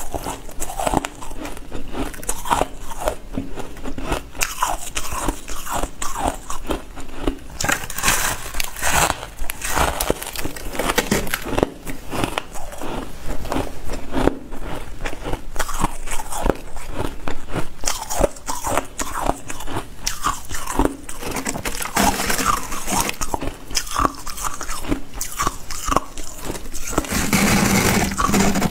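A person biting and chewing ice, a continuous run of sharp, irregular crunches.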